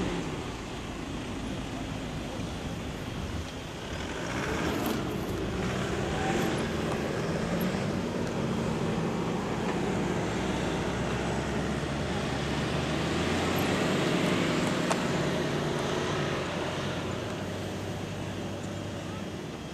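Toyota Land Cruiser 120's engine working through an off-road course, revving up about four seconds in and again after about thirteen seconds.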